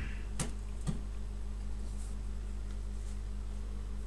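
Two short wooden knocks about half a second apart as the wooden drawer frame is handled and squared on the workbench, over a steady low electrical hum.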